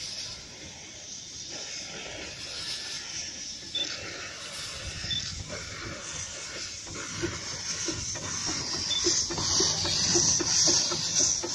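Miniature steam locomotive pulling away, with a steady hiss of steam from its open cylinder drain cocks. From about seven seconds in, exhaust chuffs come in at roughly three a second, and the sound grows louder as the engine draws close.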